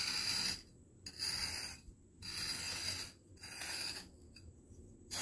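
Tip of a small metal trowel scraping lines into coarse sand: a series of short gritty scrapes, about one stroke a second with brief pauses between.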